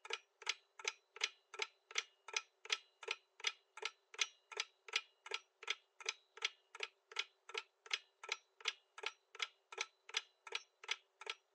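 Countdown-timer clock-tick sound effect ticking evenly, about three ticks a second, while the quiz answer timer runs down.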